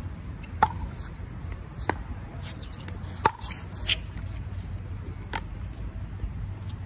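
Pickleball rally: sharp, hollow pocks of paddles striking a plastic pickleball, about five over several seconds, two of them loud and close and the others fainter from across the net. A steady low background hum runs underneath.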